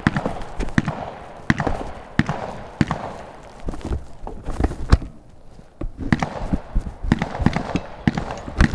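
Footsteps crunching and thudding on dry grass and dirt close to the microphone, an irregular run of scuffs and knocks.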